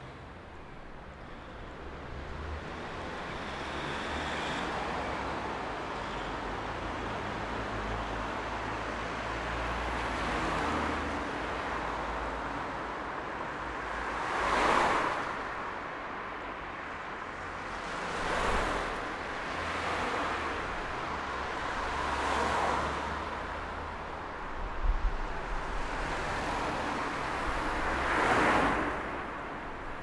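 Street traffic: a steady wash of car engines and tyres with a low rumble underneath. It fades in over the first few seconds, then single vehicles pass by every few seconds, each swelling and fading. There are a few short sharp knocks about three-quarters of the way through.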